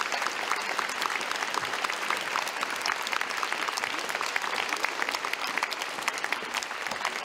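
Concert audience applauding steadily, a dense patter of many hands clapping, as a singer takes the stage.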